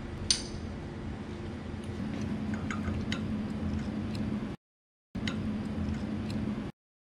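A steady low machine hum with a sharp click just after the start and a few light clicks a couple of seconds later, from a filter drier on copper tubing being handled. The sound drops out for about half a second after four and a half seconds and cuts off near the end.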